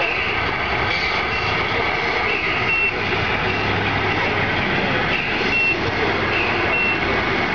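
Reverse warning beeps from a scale RC tractor-trailer, short high beeps coming in small groups while the truck backs and manoeuvres, over a steady background hum.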